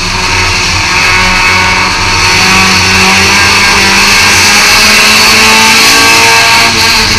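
Thunder-class stock car's engine running hard at racing speed, heard from inside the car, very loud and continuous, easing off slightly near the end.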